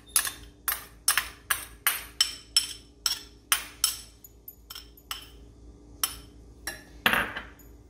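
Tableware clinking as a small ceramic bowl of chopped coriander is tapped out over a glass mixing bowl. There are about twenty sharp clinks, roughly three a second, with a louder knock near the end.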